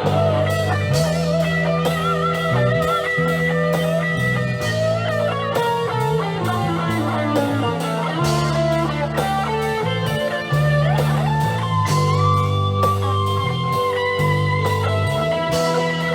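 Live rock band playing an instrumental passage: a lead electric guitar with string bends, vibrato and slides over bass and a drum kit keeping a steady beat.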